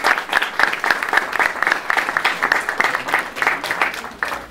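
Audience applauding, a dense run of claps that fades away near the end.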